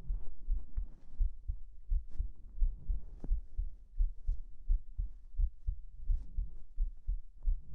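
A human heartbeat heard close up, a steady run of soft low thumps, with faint fabric rustling of bedding underneath.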